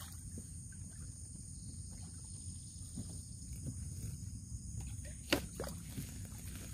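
Steady high-pitched insect chirring over a low background rumble, with a few small knocks and one sharp, loud knock a little over five seconds in as a fisherman in a boat handles his line.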